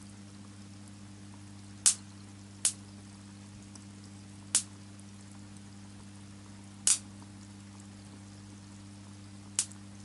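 Electrode water heater passing DC current through salt water in a bucket: a steady low hum with five sharp pops at uneven intervals.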